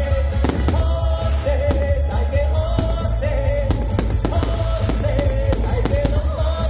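A festive song with a held, wavering sung melody over heavy bass, with fireworks bangs and pops mixed in at irregular moments.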